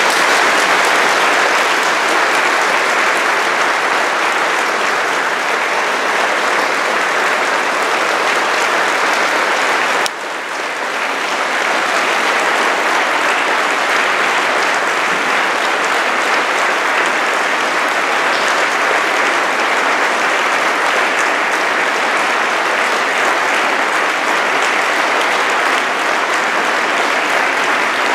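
Concert audience applauding, a dense and steady clapping that dips briefly about ten seconds in.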